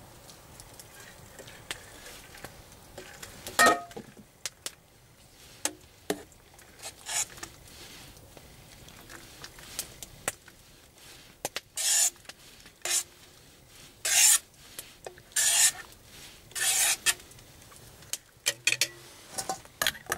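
A metal spoon or ladle scraping and clinking in a stainless steel Zebra pot as soup is served. There are scattered clicks and a sharp knock a little under 4 s in, then a run of short scrapes in the second half.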